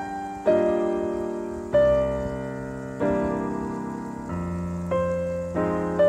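Background piano music: slow, sustained chords, each struck and left to fade, with a new chord about every second or so.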